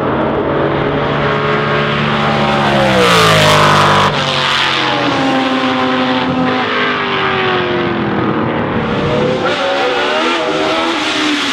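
Racing car engines running hard. One car passes close about three seconds in, its note sliding down. Just after four seconds the sound changes abruptly to engines whose pitch rises and falls repeatedly, as with acceleration and gear changes.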